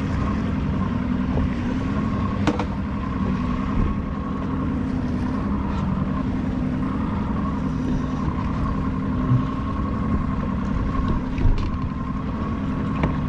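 A boat's outboard motor running steadily with an even hum, with some wind on the microphone and a few brief light knocks.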